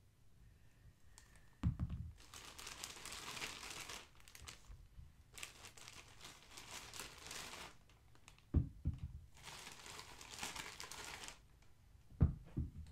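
Crinkly packaging being handled while foam stress balls are taken out, in three long rustling stretches. A few dull thumps fall between them.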